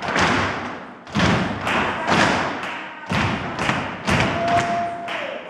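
Flamenco footwork: a group of dancers stamping their flamenco shoes on a wooden floor in rough unison, with loud stamps about once a second and lighter steps between, echoing in the room. A short steady tone sounds briefly near the end.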